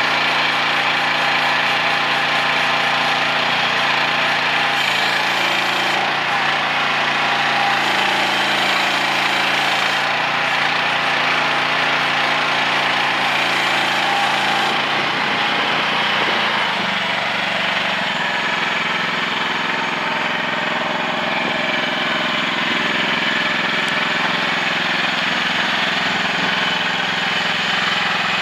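Mini excavator's engine running steadily, its pitch shifting briefly a few times as the load changes.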